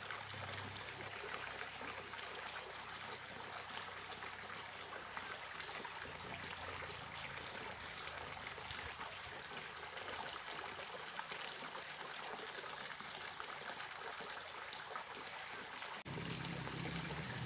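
Small mountain stream running, a steady even rush and trickle of water, with a brief break near the end.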